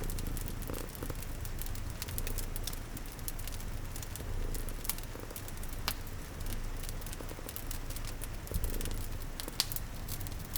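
Cat purring steadily, with a fire crackling in scattered sharp pops and soft rain patter behind it; the loudest pops come near the end.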